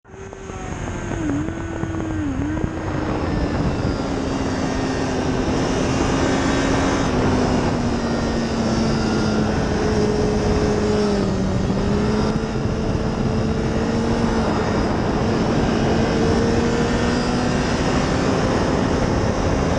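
A steady engine drone under a rushing noise, fading in at the start; its pitch wavers, dips twice, then slowly sinks.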